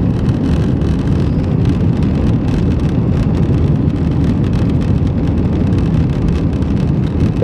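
Steady roar of jet engines and rushing air heard from inside the cabin of an Airbus A320 airliner, mostly deep rumble with an even hiss above.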